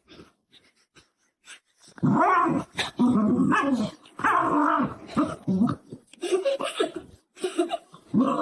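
A dog growling and grumbling in a run of drawn-out, pitch-bending vocal calls, starting about two seconds in after a quiet start.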